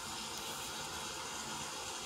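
Hurricane storm sound effect: a steady rushing hiss of wind and rain, unchanging throughout.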